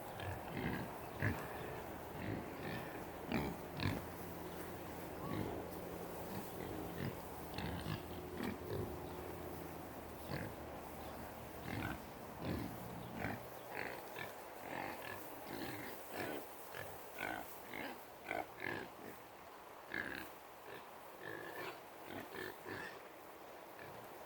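Hogs grunting: many short, irregular grunts one after another. A steady low hum runs under the first half and stops about halfway through.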